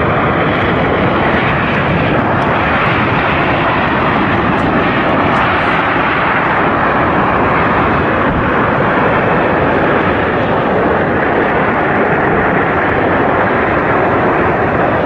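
Aircraft engine noise: a steady, loud rushing sound with no clear engine tone, holding at one level.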